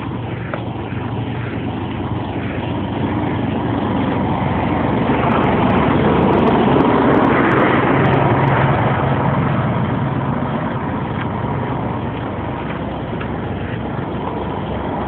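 A motor vehicle passing on the street, its engine hum and road noise swelling to a peak about seven seconds in and then easing off.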